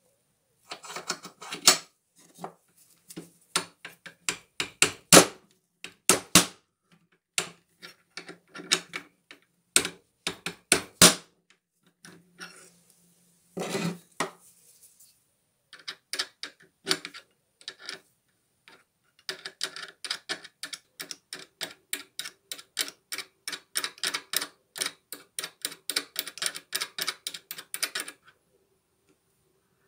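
Ratchet wrench clicking on the nut of the angle grinder's armature pinion, with sharp metal clicks in irregular runs. In the second half it becomes a long, fast, even series of clicks that stops shortly before the end.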